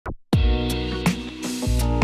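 Background music, chords over a steady beat with a low kick drum, starting just after the beginning.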